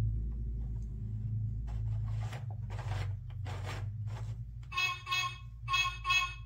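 Plastic gear wheels of a children's sound book turned by hand, making a few short scrapes. Then the book's electronic sound chip plays a tinny bus horn: two double beeps, the loudest sound here.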